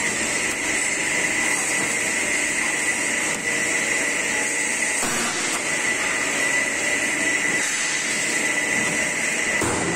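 CNC angle-steel punching line running, its hydraulic power unit giving a steady mechanical hum with a constant high whine.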